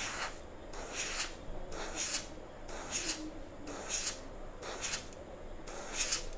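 Gravity-feed airbrush spraying black paint at about 30 psi in short hissing bursts, about one a second.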